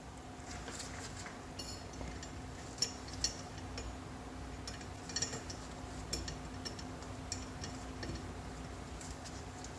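Small metal clicks and clinks of a 3/32 Allen key working the set screw of a kitchen faucet handle to take it off. The clicks come irregularly, with two sharper clinks about three seconds in and a cluster about five seconds in, over a faint steady hum.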